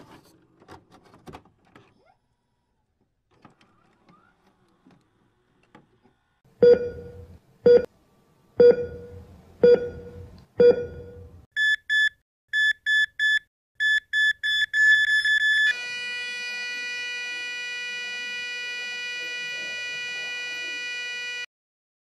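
Heart-monitor sound effect: five low thuds about a second apart, then a high electronic beep repeating faster and faster, then one steady flatline tone held for about six seconds that cuts off suddenly. The flatline is the signal of a stopped heart.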